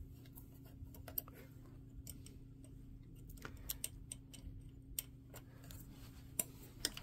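Faint, irregular metallic clicks and ticks from a hex key tightening the set screws on the collar of a sewing machine's electronic positioning system module, over a faint steady low hum.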